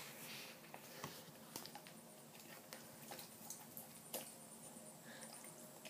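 Faint scattered clicks and taps of a wet plastic Nerf Elite toy walkie-talkie being turned over in the hand.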